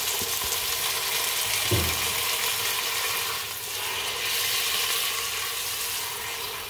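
Browned beef and onions sizzling in a pot on the stove, just after beef stock has been poured in, while a spoon stirs them. A single low knock about two seconds in.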